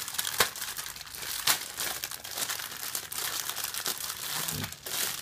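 Thin clear plastic bags around model-kit parts runners being crinkled and handled, a continuous crackle with sharper crackles about half a second and a second and a half in.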